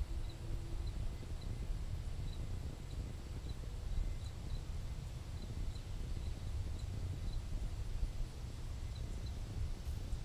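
Wind buffeting the camera microphone as a steady low rumble, with a faint, high chirp repeating about twice a second.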